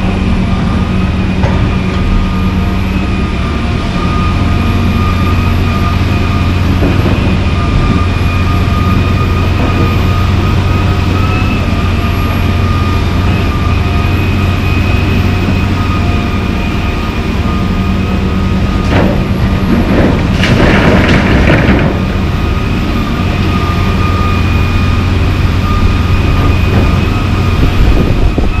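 John Deere 350D LC excavator's diesel engine working, a low drone with a steady whine above it that swells and eases as the boom moves. About twenty seconds in there is a burst of clattering as asphalt chunks are dropped into the steel dump trailer.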